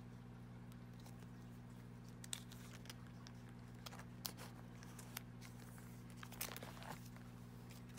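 Faint crinkles and clicks of a photocard in a clear plastic sleeve being handled and slid into a plastic binder pocket page, a few scattered at first and more near the end, over a steady low hum.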